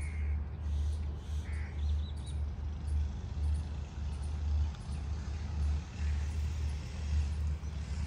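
Low, gusting rumble of wind on the microphone, with a few short bird calls over it: one at the very start, another about a second and a half in, and a higher chirp just after.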